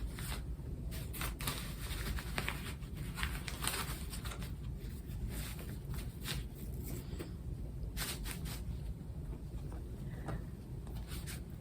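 Soft, scattered rustles and small clicks of hands handling a baby doll and its clothing, over a faint steady low hum.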